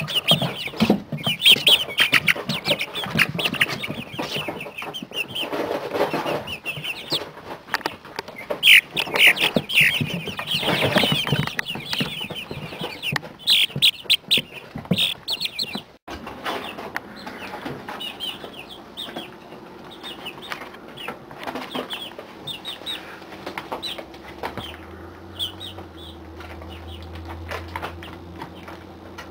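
A brooder crowd of 40-day-old chicks peeping and cheeping, with many short high calls overlapping and scattered clicks and rustles. About halfway through the calls become fewer and quieter, and a low steady hum comes in near the end.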